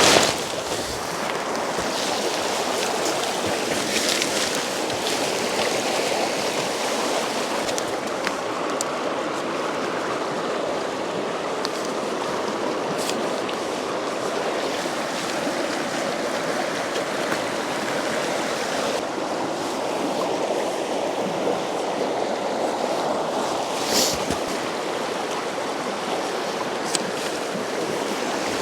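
Steady rushing of a mountain river's flowing water, with a few brief knocks.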